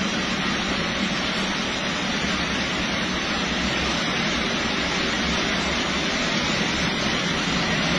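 Heavy rain falling, an even steady hiss, with the low running of truck engines beneath it.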